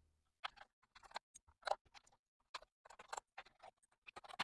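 Faint, irregular light clicks and ticks, several a second, as the tiny screws holding the Color Computer 2 keyboard's metal back plate are taken out and handled.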